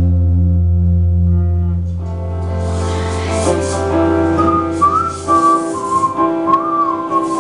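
A band playing live on acoustic guitar, with a held low bass note and chords that fade out about five seconds in. Midway through, a high, sliding whistled melody comes in over the guitar.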